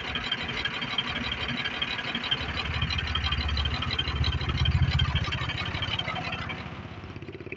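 Tata 2518 truck's diesel engine idling with a steady, even beat. It grows louder and deeper about halfway through, then eases off.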